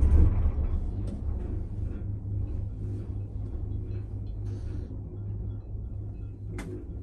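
Steady low rumble inside a gondola cabin running along its haul cable, loudest at the start and easing off as the cabin moves clear of the station. A single sharp click near the end.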